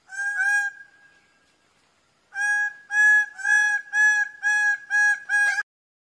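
Greater bird-of-paradise (Paradisaea apoda) calling loudly: a quick pair of notes at the start, then after a short pause a run of about seven similar calls at about two a second, cutting off abruptly near the end.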